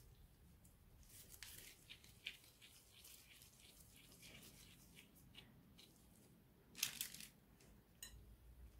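Faint rustling and soft ticks of gloved hands shaping cookie dough and setting it on a parchment-lined baking tray, with a brief louder rustle about seven seconds in.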